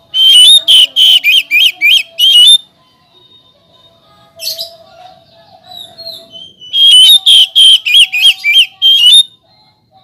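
Oriental magpie-robin singing: two loud runs of rapid, swooping whistled notes, each about two and a half seconds long, with a softer single call between them.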